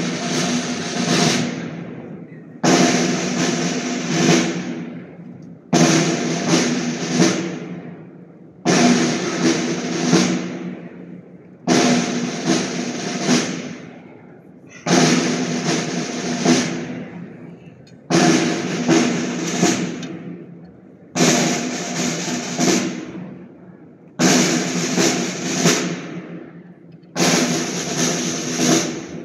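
Procession band's drums playing a repeating cadence: a sudden stroke and roll about every three seconds, each phrase dying away before the next, with low held tones beneath.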